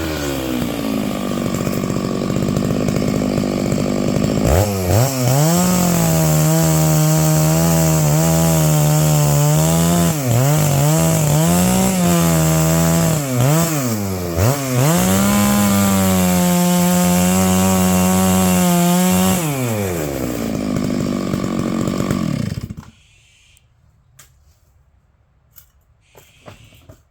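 Stihl MS 660 two-stroke chainsaw winding down to idle, then run at full throttle to cut pine firewood, its pitch dipping several times as the chain bites into the log. It drops back to idle and cuts off suddenly near the end, followed by a few faint knocks.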